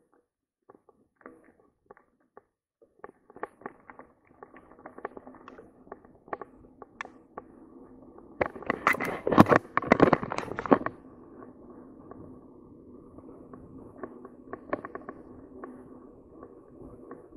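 Mountain bike rolling on a dirt trail: scattered crunches and clicks from the tyres on gravel at first, then a steady hum from the tyres on dirt with rattles over bumps. A loud burst of knocking and rattling comes about nine to eleven seconds in, as the bike goes over rough ground.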